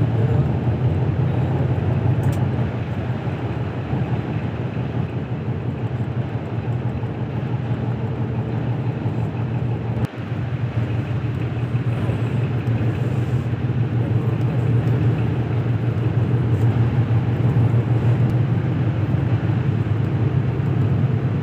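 Steady low drone of a moving bus heard from inside the cabin: engine and road noise, with a brief dropout about ten seconds in.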